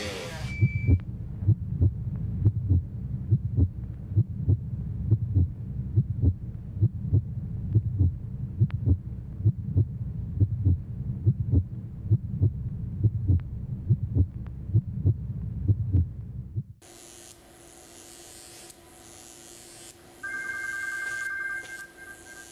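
A steady, low heartbeat, beat after beat, that stops about seventeen seconds in. A few seconds later a telephone rings once, briefly, near the end.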